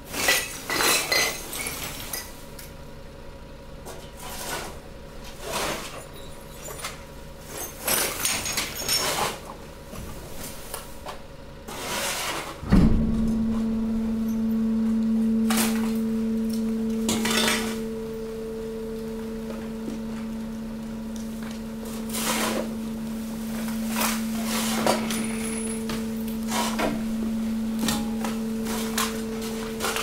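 Mixed waste knocking and clinking in a compactor hopper, bottles and cans rattling against each other and the metal walls. About 13 seconds in, the press's hydraulic power unit starts with a thump and runs on with a steady hum while more knocks sound over it.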